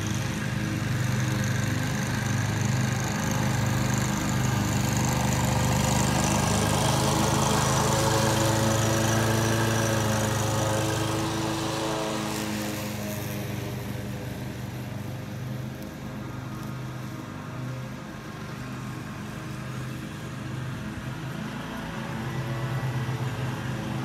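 Stand-on zero-turn lawn mower engine running steadily. It grows louder as the mower comes close along the fence, is loudest around the middle, then fades as the mower moves away across the lawn.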